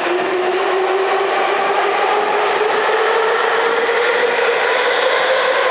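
Electric commuter train accelerating out of the station: its traction motor whine climbs steadily in pitch over the steady noise of the cars running past on the rails.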